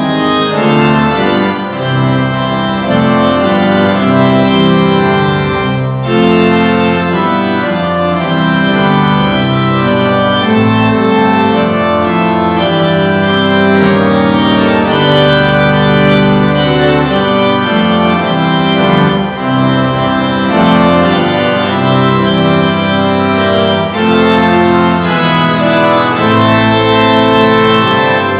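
Organ music: held chords that change every second or so.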